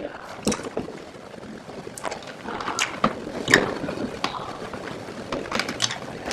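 Scattered, irregular sharp clicks and rustling from a cough drop being handled.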